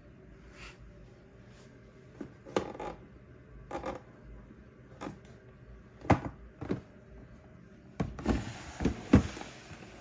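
Handling noises: scattered sharp knocks and clicks. About eight seconds in, a rustling hiss sets in, with several louder knocks.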